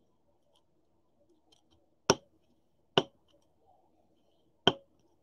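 Three sharp clicks of hard plastic as a trading card in a rigid plastic holder is handled. The first two come about a second apart, and the third comes after a longer gap.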